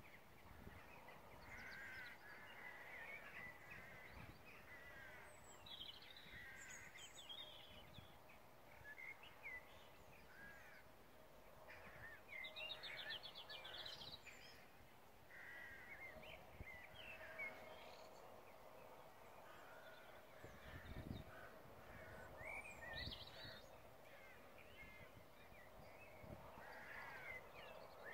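Faint birds calling and chirping at scattered intervals over a quiet rural background, with a faint steady hum in the second half and a soft low thump about three-quarters of the way through.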